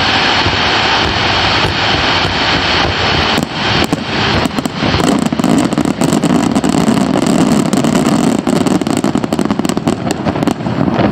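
Fireworks barrage: rapid overlapping bursts and crackle merging into a continuous roar, growing heavier and deeper from about halfway through.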